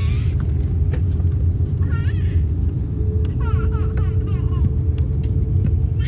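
Airliner cabin noise: a steady, loud low rumble of engines and airflow with a faint constant hum above it, and brief faint high voices of other passengers in the background.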